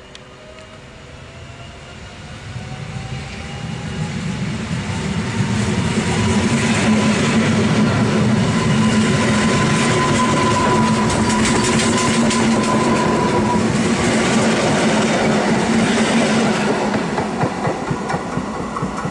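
EN71AKS electric multiple unit approaching and running past. Its traction motors whine, the whine rising in pitch over the first ten seconds and then holding. Wheels clatter over the rail joints as the cars go by, and the sound eases as the train moves away.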